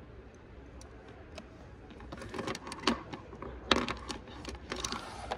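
Pens, highlighters and paper being handled on a table: a few faint ticks, then from about two seconds in a quick run of plastic clicks and taps with paper sliding, loudest around three to four seconds.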